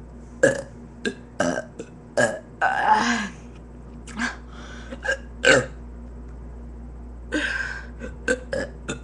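A person burping over and over: a run of short, abrupt burps, with a longer drawn-out one about a third of the way through and another near the end. A steady low electrical hum runs underneath.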